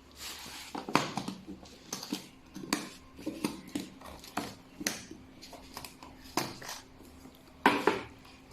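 Electric chiropractic adjustment gun firing single impulses: sharp clicks at irregular intervals, roughly one every half second to a second, over a faint steady hum.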